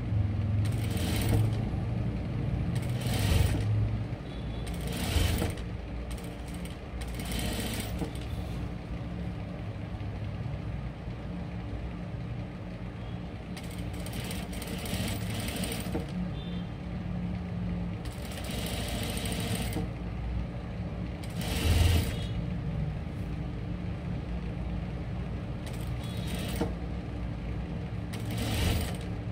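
Juki industrial lockstitch sewing machine stitching bias binding onto a neckline in short runs of a second or two, repeated about eight times over a steady low motor hum.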